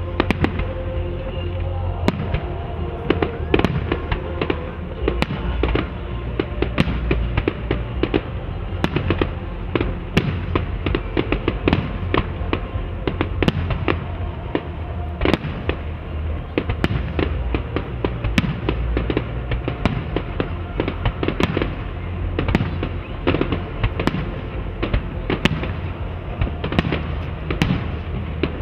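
Fireworks display: aerial shells bursting in a continuous run of sharp bangs, a few each second, over a steady low rumble.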